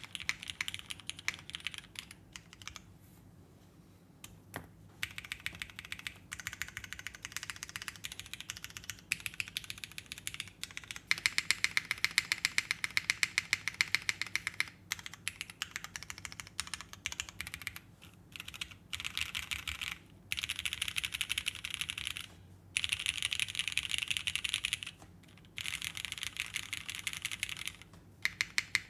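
Custom mechanical keyboard with Krytox 205-lubed Cherry retooled switches in an aluminium plate, under GMK keycaps, being typed on in fast runs of keystrokes with brief pauses between them.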